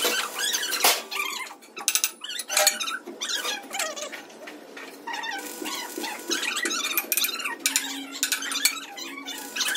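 Metalworking noise: sharp metallic clinks and knocks mixed with short squeals that bend in pitch, as metal parts are worked and rubbed.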